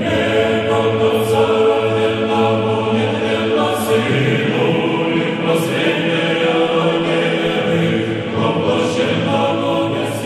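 Choir chanting in slow, long-held notes, several voices together.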